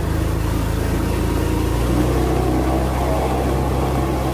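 Low, steady engine-like drone, as of a motor idling, its pitch shifting slightly about two seconds in.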